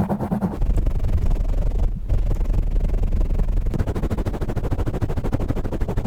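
Fingers scratching and rubbing fast on the foam windscreen of a Blue Yeti microphone: rapid, dense scratching strokes with a heavy low rumble from the handling, briefly easing about two seconds in.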